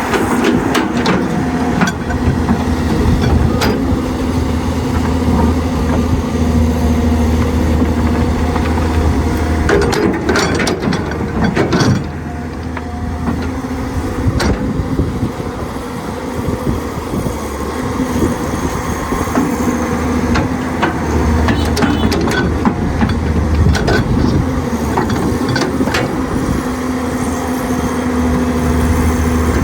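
Excavator diesel engine running steadily, with a few sharp clanks about ten seconds in and a brief drop in engine level around twelve seconds.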